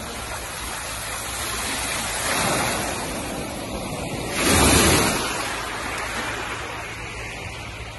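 Sea surf washing on the shore: a steady rush of water that swells twice, loudest about four and a half seconds in.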